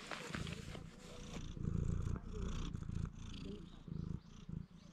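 Long-haired grey cat purring close up; the purr swells about a second and a half in.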